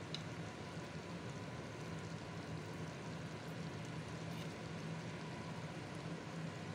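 Chicken tagine simmering in an earthenware tagine on a gas stove: a steady sizzling, bubbling hiss with a low steady hum underneath.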